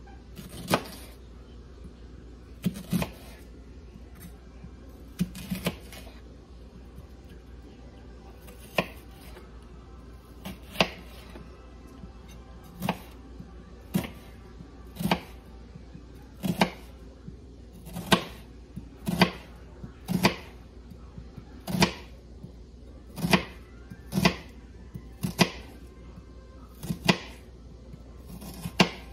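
Kitchen knife slicing through a peeled onion and knocking on a plastic cutting board, one sharp tap per slice: a few spaced taps at first, then about one a second.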